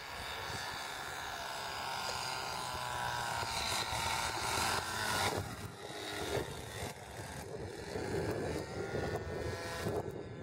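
Propeller-driven radio-controlled model airplane flying past: a steady engine drone that grows louder and drops slightly in pitch as it goes by. The sound changes abruptly about five seconds in.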